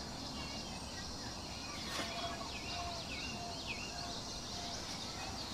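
Birds chirping in short, swooping calls over a steady high hiss, with a repeated short note from about two seconds in. A single sharp click about two seconds in.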